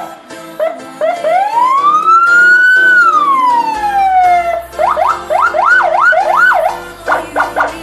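Senken electronic vehicle siren sounding through its tones. It opens with short chirps, then about a second in gives one long wail that rises and falls over about three seconds, then four fast yelp sweeps, and rapid short blips near the end.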